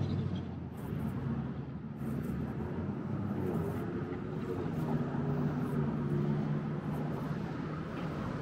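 Street traffic passing on a road: car engines and tyre noise going by, with one vehicle's low engine hum clearest in the middle.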